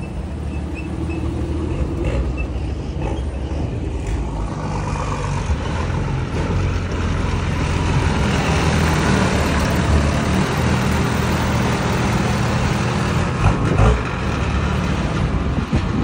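Engines of rat rod trucks running as they drive slowly past on the street, a steady low rumble that swells for a while in the middle.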